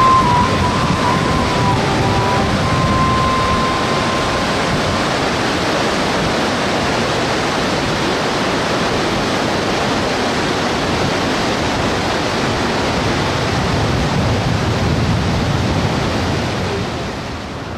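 Bow Falls, the Bow River's wide cascade, with water rushing steadily over it; the rush drops a little in level near the end.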